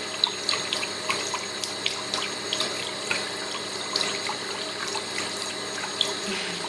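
Tap running in a steady stream into a sink while a cat drinks from it, with many small irregular splashes and ticks over the steady hiss of the water.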